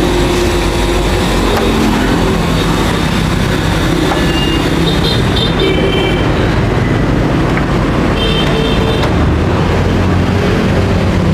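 Steady din of street traffic, with a few short high beeps about five and eight seconds in.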